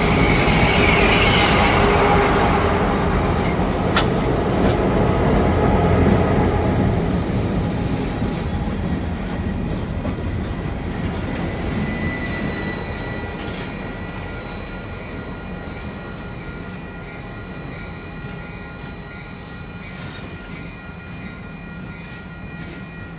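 Diesel freight train passing close by: locomotive engine noise at first, then tank cars rolling past on the rails, fading steadily as the train moves away. One sharp knock about four seconds in.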